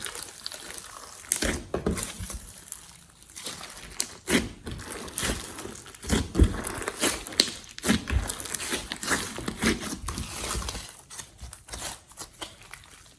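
Slime being kneaded, squeezed and stretched by hand, giving a run of irregular sticky clicks, snaps and crackles several times a second.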